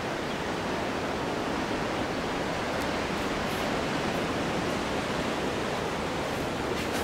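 Steady, even rushing noise of ocean surf.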